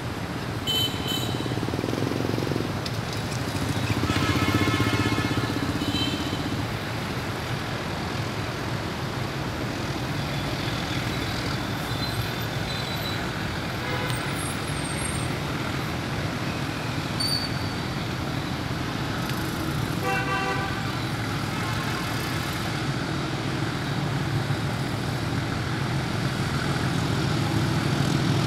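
Steady city traffic noise with a horn sounding a few short times, longest and loudest about four to six seconds in. The low rumble of the approaching D13E diesel locomotive grows stronger over the last few seconds.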